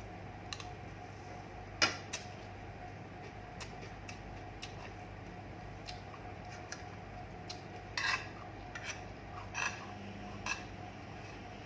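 Eating utensils clicking and scraping against a plate during a meal: scattered light clinks, the loudest about two seconds in and a small cluster from about eight seconds on, over a steady low hum.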